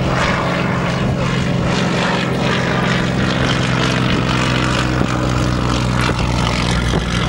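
Yak-52's M-14P nine-cylinder radial engine running steadily at full takeoff power, with propeller noise, as the aircraft accelerates down the runway and lifts off.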